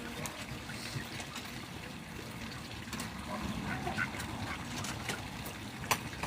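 Water running and trickling steadily, with a few faint clicks.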